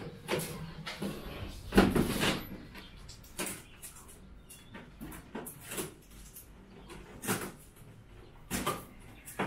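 Knocks and scrapes of an air-conditioner's plastic indoor unit being laid down onto its cardboard box and shifted by hand, with the loudest thump about two seconds in and scattered lighter knocks after.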